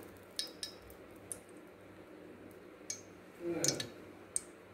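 Ghee heating in a hot aluminium pressure cooker, giving scattered faint ticks and pops, the loudest cluster about three and a half seconds in.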